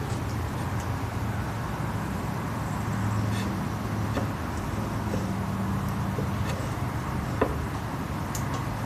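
Steady low hum that swells slightly now and then, with a few faint light taps and a small click about seven seconds in.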